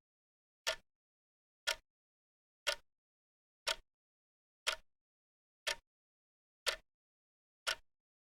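Wristwatch ticking in a steady once-a-second rhythm, each tick a short sharp click; the one-per-second beat is typical of a quartz movement.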